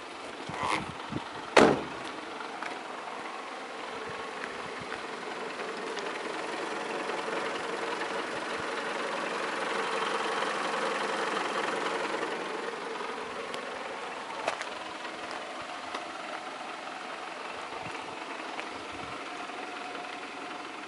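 Renault Modus 1.2 16v four-cylinder petrol engine idling steadily, heard from outside the car. It grows louder toward the middle as the rear is passed, then eases off. A car door shuts with a thump about a second and a half in.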